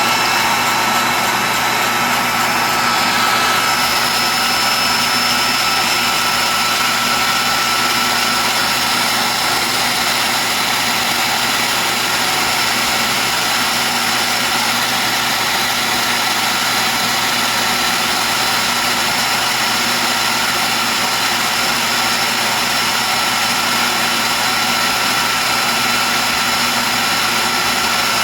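Dumore tool post grinder motor running at high speed with a steady high whine over the hum of the South Bend lathe under power feed, on a grinding pass truing the jaws of a three-jaw chuck.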